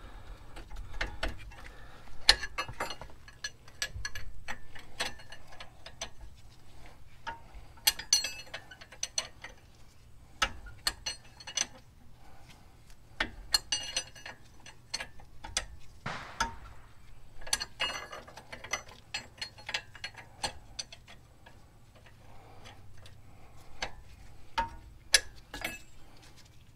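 Metal ticking and clinking from a wrench working a tight castle nut loose on a lower ball joint stud. The clicks come in quick clusters every few seconds, with pauses between.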